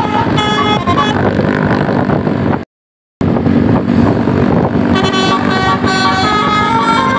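Tour bus's musical 'telolet basuri' air horn playing a tune of quick changing notes over the bus's running engine. The sound cuts out completely for about half a second near three seconds in, then the horn tune carries on.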